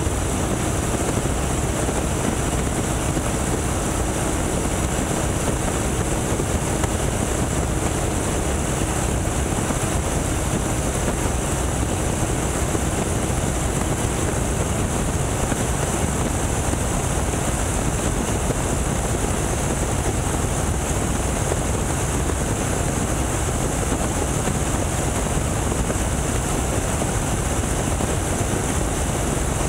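Boeing Stearman biplane in flight, heard from the open cockpit: its radial engine and propeller run steadily under a constant rush of wind.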